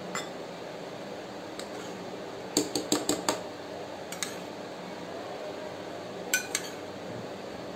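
Metal spoon clinking against the rim of an aluminium pot and a bowl while citric acid water is spooned into hot milk to curdle it: a quick run of five or so clinks about two and a half seconds in, one more a little later, and two near the end.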